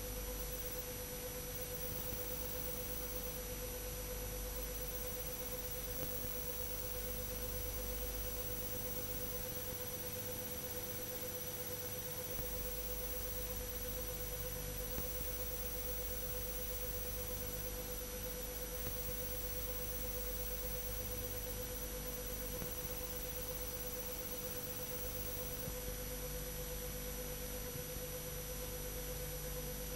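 A steady electrical hum with a faint high whine above it, over even hiss, unchanging throughout: a bare signal tone with no recorded sound behind it.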